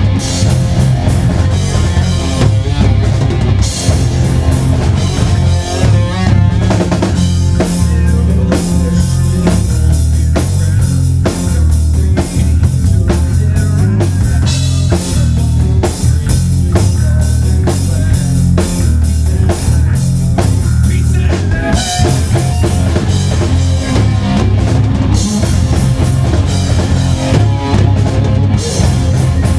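Heavy metal band playing live at full volume, with a pounding drum kit of bass drum and snare over heavy, changing bass and guitar notes.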